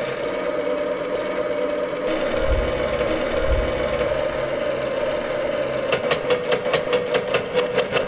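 Rotary telephone dial: a steady mechanical whir, then near the end a rapid run of evenly spaced clicks, about seven a second, as the dial spins back.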